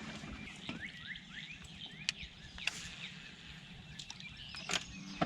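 Small birds chirping with short rising calls, with a few sharp clicks among them.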